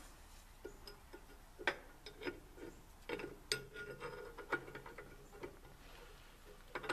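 Light, irregular metal clicks and taps as a ball screw is worked up through a mini mill's base casting from underneath, with a few sharper knocks among them.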